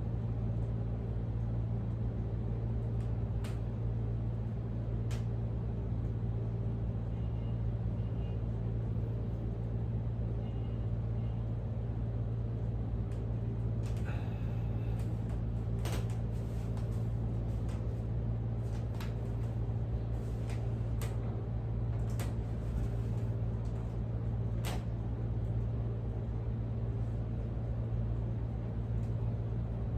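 Steady low machine hum with several steady pitches, and a few faint clicks and taps scattered through it.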